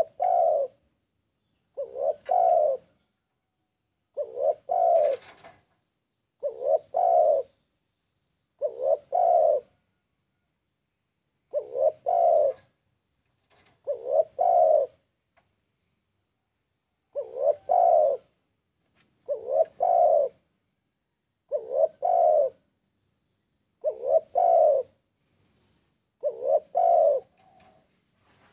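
Spotted dove (tekukur) song: a short phrase of two or three low coos repeated about every two to three seconds, with silence between phrases. This is the lure call that bird trappers play to draw in rival doves.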